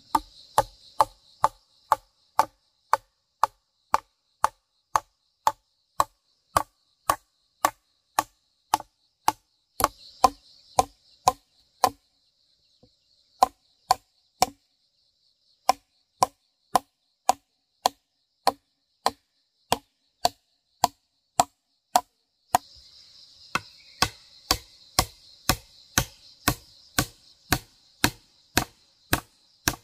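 A wooden mallet striking steadily, about two blows a second, as nails are driven into wooden poles, with a few seconds of scattered blows about twelve seconds in. Insects buzz high and steady behind it, loudest in the last seven seconds.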